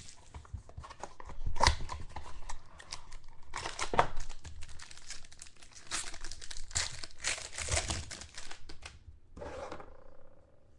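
Plastic wrapping of a trading card pack crinkling and tearing as it is opened, in irregular crackling bursts that stop about nine seconds in.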